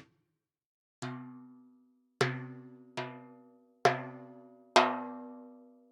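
A sampled Middle Eastern drum played five times, with slightly uneven spacing. Each stroke has a sharp attack and a pitched ring that dies away within about a second. Most strokes carry a deep low boom, and one is a higher stroke without it.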